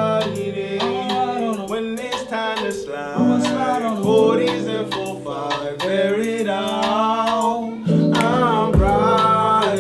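Hip-hop song: a male rapper's melodic, sung-style vocal over backing music with held chords that change every second or two.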